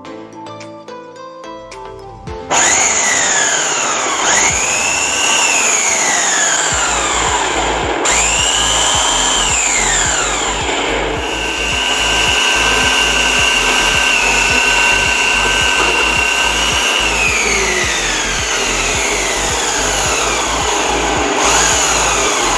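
Preethi Zodiac mixer grinder's electric citrus juicer motor starting up about two and a half seconds in and running loud while orange halves are pressed onto its spinning cone. Its whine falls and rises again several times and holds steady for a while in the middle.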